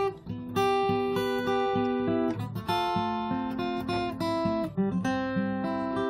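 Background music: a plucked acoustic guitar playing a melody of notes that change about every half second.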